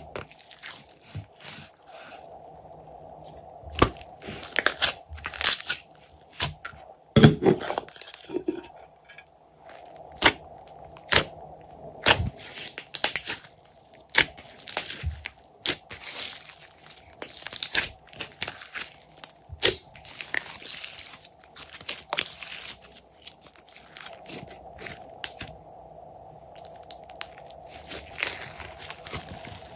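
Hands squishing, pressing and stretching a large mass of glossy slime, giving irregular wet pops, clicks and short crackling stretches.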